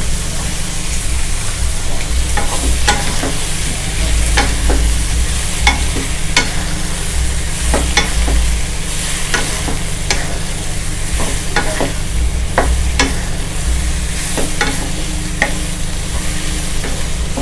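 Shiitake mushrooms and shrimp sizzling in hot oil in a wok, stir-fried with a wooden spatula that clacks and scrapes against the pan about once or twice a second. A steady low hum runs underneath.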